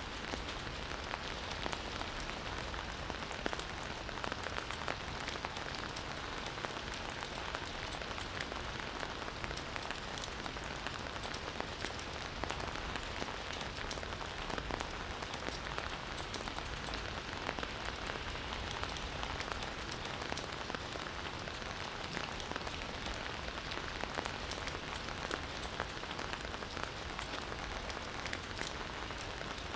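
Campfire crackling steadily: an even hiss of burning wood with frequent small pops and snaps.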